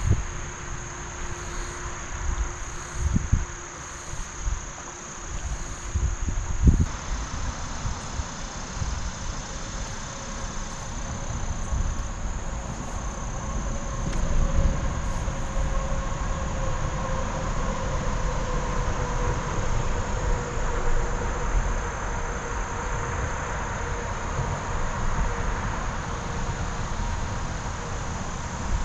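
A heavy road vehicle's drone builds from about ten seconds in and holds, its tyre whine slowly falling in pitch. Insects buzz steadily throughout, and wind thumps on the microphone during the first several seconds.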